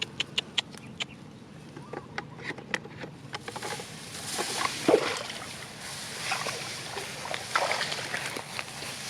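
Water sloshing and splashing, as if something is moving through shallow water, loudest about five seconds in. Before it, for the first three seconds or so, comes a run of sharp clicks.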